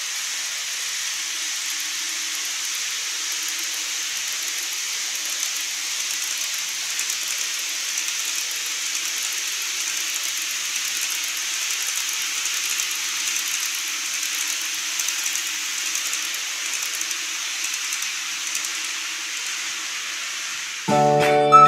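TOMIX N-scale model trains running on the layout track: a steady rolling hiss with a faint motor hum underneath and light ticks. Music starts abruptly near the end.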